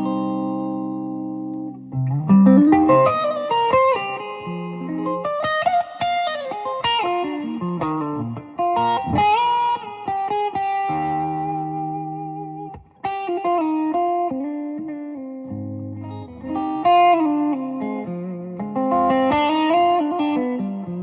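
Gibson Custom Shop Murphy Lab '59 ES-335 reissue semi-hollow electric guitar played amplified: held, ringing chords alternating with single-note lead phrases with string bends.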